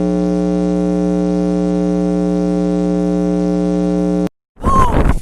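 Steady electronic buzz tone, low-pitched with a dense stack of overtones, held at one level for about four seconds and cutting off abruptly.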